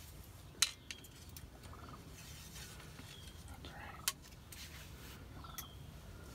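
Wild turkeys calling faintly with a few short, high chirps. A sharp click comes about half a second in and again about four seconds in.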